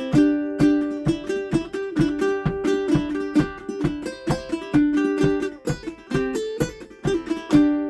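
Solo ukulele played clawhammer style: a fast, bouncing run of picked melody notes with brushed strums.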